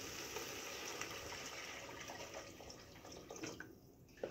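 Water poured into an aluminium pressure cooker over hot fried masala, a steady pour that stops about three and a half seconds in, followed by a few faint clicks.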